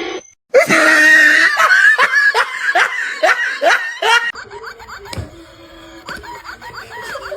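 A person laughing hard in a quick run of loud laughs, then a quieter stretch with a thump and a string of short, high-pitched repeated sounds near the end.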